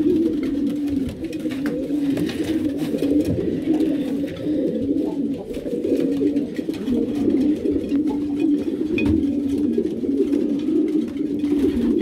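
Many racing pigeons cooing at once, a continuous overlapping chorus of low wavering coos. These are widowhood cocks calling to their hens.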